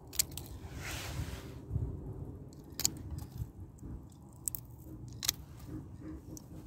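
Hand pruning shears (secateurs) snipping through woody hydrangea stems: a few sharp, crisp clicks spread out, with a brief rustle of twigs about a second in.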